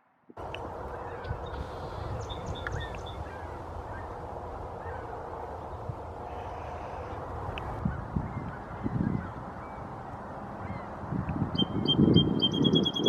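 Geese honking, louder toward the end, over a steady rushing background, with small birds calling and a fast high trill near the end.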